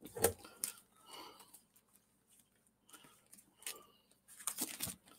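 Comic books being handled: short rustles and light taps, a few near the start and a cluster near the end, with faint soft sounds in between.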